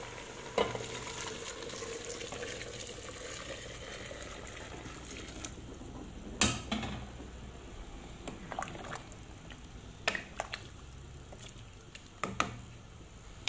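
Hot water being poured into an aluminium pot of chicken and turnips, a steady splashing fill. A few sharp knocks of a wooden spoon against the pot come about six, ten and twelve seconds in.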